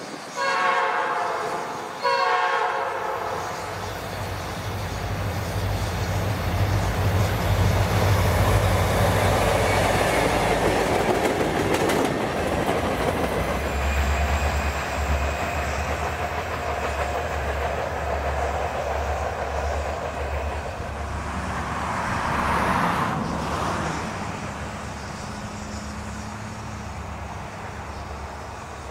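Norfolk Southern freight train passing at speed: two short horn blasts at the start, their pitch dropping as the locomotives go by, then the diesel locomotives' engine drone. The cars follow with a rhythmic clickety-clack of wheels on the rail, swelling briefly about two-thirds of the way through before fading.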